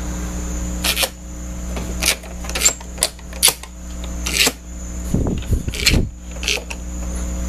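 Hammond B3 organ's amplifier giving off a steady mains hum, a ground hum that has not yet been cured, broken by about eight sharp clicks as its preset keys and drawbars are worked.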